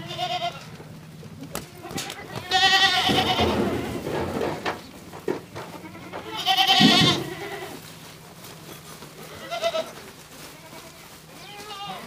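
Goats bleating, several quavering bleats: two long, loud ones about two and a half and seven seconds in, with shorter, fainter ones at the start and near the end.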